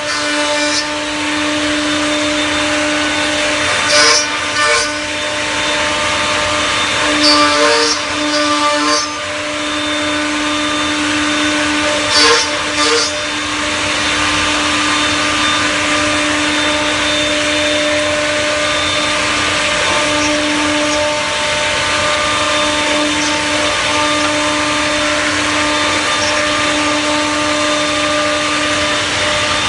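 A multi-spindle CNC mortising machine running, with a steady whine and hiss as its router bits cut mortises into wooden rails. Several short, loud bursts of cutting come in the first half.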